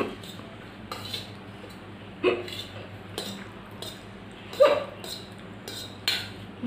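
A woman hiccuping repeatedly, about six short hiccups roughly a second apart, the loudest about halfway through. The hiccups are brought on by eating very spicy noodles.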